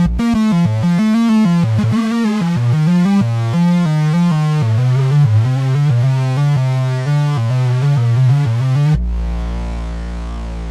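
RYK Modular Night Rider synth module playing a fast sequence of pitched, buzzy notes that step up and down. About nine seconds in, it switches to a single held low drone note.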